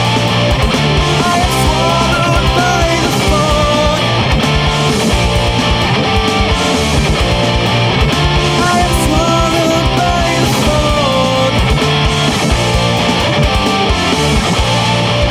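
Instrumental death metal passage: distorted guitars and fast drum hits under a gliding melodic lead line.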